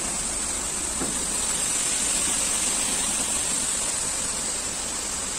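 Wheat grain pouring in a steady stream out of a tipped tractor trolley's open tailgate onto a concrete floor, a continuous rushing hiss that swells slightly in the middle.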